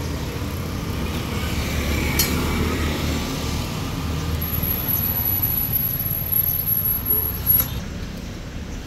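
Road traffic running past as a steady low rumble, with a thin high-pitched whine for about three seconds in the middle and a couple of light clicks.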